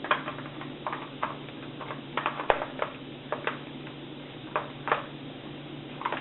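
Irregular clicks and knocks of a Mini Draco AK pistol and its magazine being handled, the sharpest about two and a half seconds in.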